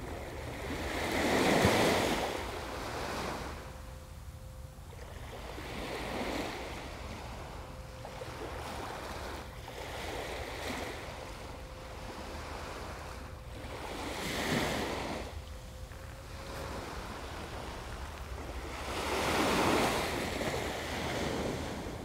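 Gulf of Mexico surf breaking on the beach, each wave swelling up and washing in about every four to five seconds, the strongest near the start and near the end. Wind rumbles on the microphone underneath.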